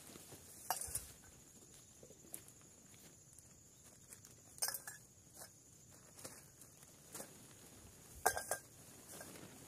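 Scattered rustling and clattering from a nylon dome tent and its poles being handled as the tent is taken down, with a plastic bag rustling alongside. The louder bursts come about a second in, in the middle and near the end, over a faint steady high hiss.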